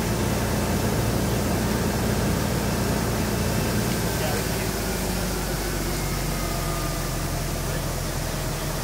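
Fire engine running steadily while pumping water to a master stream, with a steady rushing hiss of water spray over a low engine drone.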